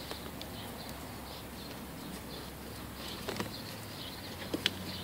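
Electrical tape being unrolled and wrapped around a wire splice: quiet handling and tape noise with scattered faint high chirps and a few sharp clicks near the end, over a steady low hum.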